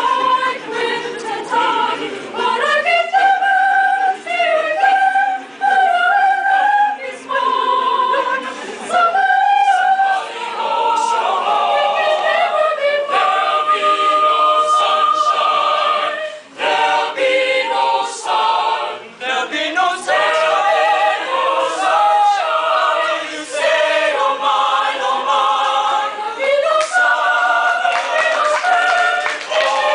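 Choir singing in harmony, several voice parts moving together in a sung melody, with brief breaks between phrases.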